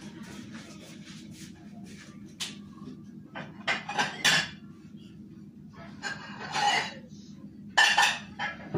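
Dishes clattering in several short bursts of knocks and clinks as a serving plate is fetched, the loudest burst near the end, over a low steady hum.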